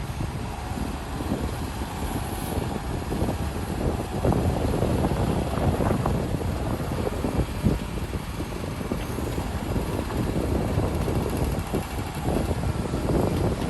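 Heavy diesel earthmoving machinery working soil: a steady engine rumble mixed with irregular crunching and knocking, a little louder from about four seconds in.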